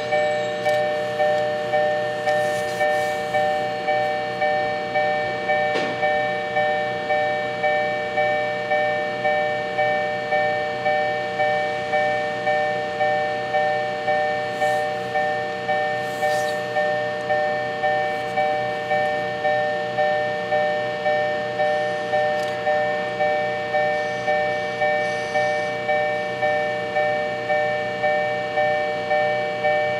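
Railway level-crossing warning bell ringing steadily, about three strikes every two seconds, each strike a cluster of fixed tones that fades before the next.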